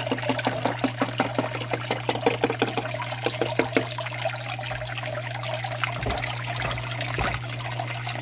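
Water trickling steadily across a Miller table, over a constant low hum. For the first four seconds a run of quick light taps, about four a second, comes with the spoon working concentrates onto the table.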